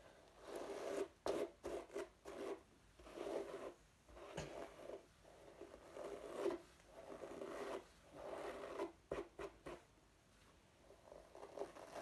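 A hairbrush drawn again and again through long hair close to the microphone: about eight short rasping strokes, roughly one every second or so, with a few light clicks, getting quieter near the end.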